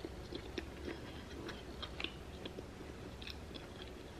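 A bite into a Burger King fish sandwich, then chewing: faint scattered mouth clicks and soft crunches, several each second.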